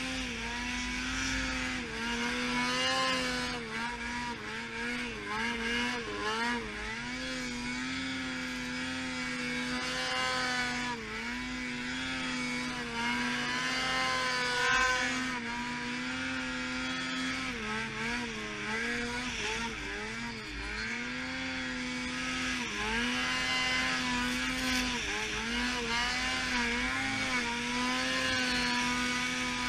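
Snowmobile engine running hard under throttle through deep powder snow. It holds a steady pitch, dipping briefly and coming back every second or two as the throttle is eased and opened again.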